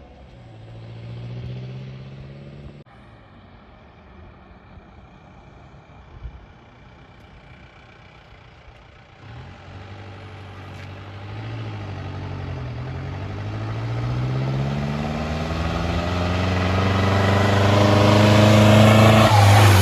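Mahindra Bolero pickup's turbo-diesel engine running through its stock exhaust with the muffler removed. It revs, drops quieter after a cut about 3 s in, then from about 9 s in climbs steadily in pitch and loudness as it accelerates, loudest near the end.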